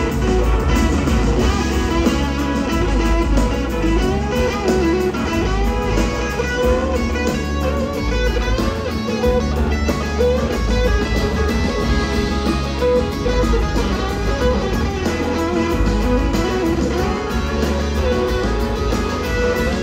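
Live band music with several electric guitars over a steady bass line; a lead guitar line bends and slides in pitch, most clearly a few seconds in and again near the end.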